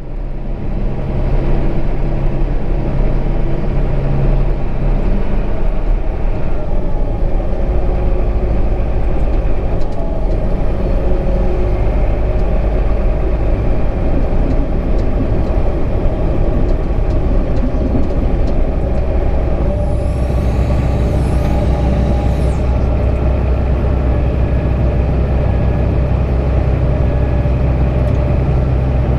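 Heavy diesel machinery running steadily with a deep, even rumble.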